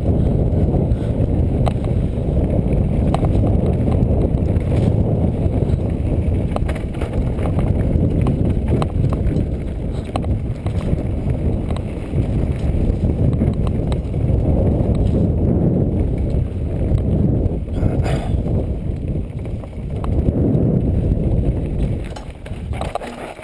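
Trek Rumblefish Elite mountain bike descending a rocky dirt singletrack at speed: a constant low rumble of the tyres and wind on the bike-mounted camera's microphone, with frequent clicks and clatters as the bike rattles over rocks and roots. The rumble eases off near the end.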